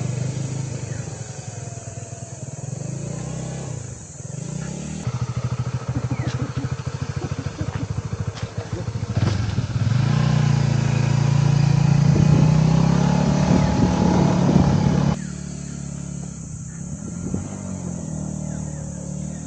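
Motorcycle engine running under load, its pitch rising and falling with the throttle, with a stretch of rising revs about two-thirds of the way through. The sound changes abruptly twice.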